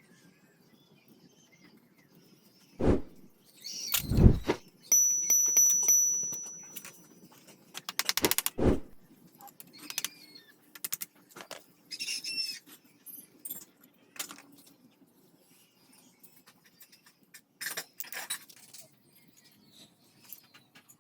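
Metal tools and engine parts being handled: scattered knocks and clicks. About five seconds in, a piece of metal rings with a high tone that fades over about two seconds, and a quick run of clicks follows a few seconds later.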